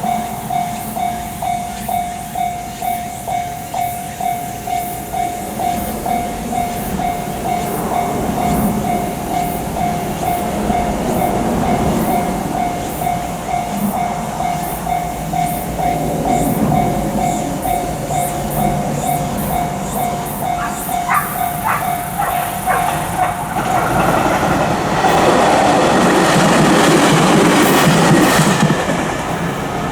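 Japanese level-crossing warning bell ringing its pulsing electronic "kan-kan" about twice a second while a train rumbles past with rail clicks. Near the end the bell cuts off abruptly and a louder train-passing noise takes over.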